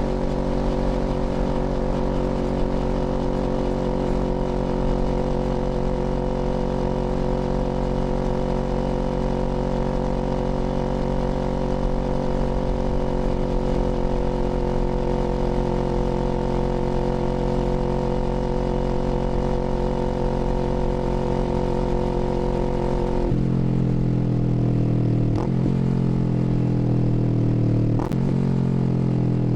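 Kawasaki Z400's 399 cc parallel-twin engine running at a steady speed under way. About 23 seconds in, its pitch drops suddenly and then falls slowly as the bike slows, with two short blips near the end.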